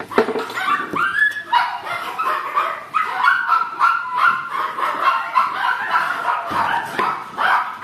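Miniature Pinscher puppies yipping and whining in a fast, unbroken series of short, high-pitched calls.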